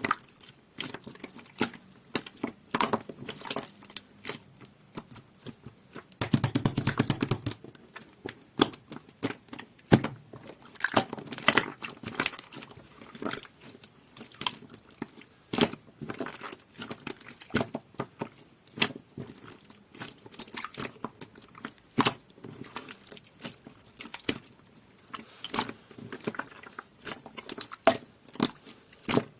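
Orange fluorescent jelly-textured slime being squished and pressed by hand, giving a steady stream of small sticky clicks and pops. About six seconds in there is a dense run of clicks for a second or so.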